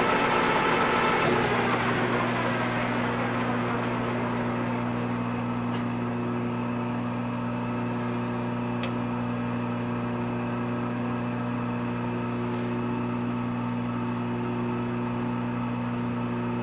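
Pratt & Whitney Model B lathe running with a steady electric hum. A rushing noise in the first second or two fades away, leaving the hum.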